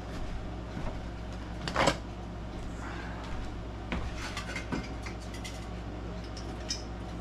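Scattered knocks and clicks from hands working inside the case of an Emperor Model 101 grandfather clock: stopping the pendulum and lifting off the brass weights. The loudest knock comes about two seconds in, with a cluster of smaller ones around four to five seconds, over a steady low hum.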